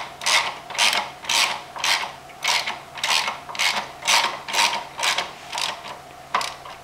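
Socket ratchet clicking in repeated strokes, about two a second, as it runs down the lower caliper bracket bolt, a stock Kawasaki H2 caliper bolt; the strokes end with a single sharp click near the end.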